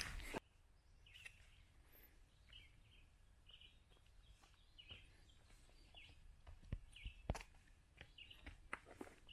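Footsteps stop abruptly about half a second in, leaving near quiet woods with a string of faint, short bird chirps and a few soft clicks.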